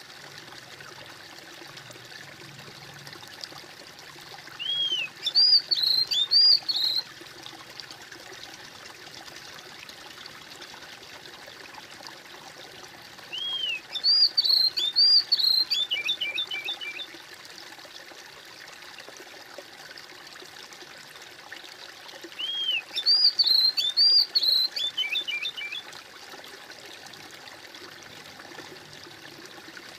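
Steady trickling and splashing of a small stream, with a songbird singing the same short phrase three times about nine seconds apart: a few clear whistled notes and then a quick trill, much louder than the water.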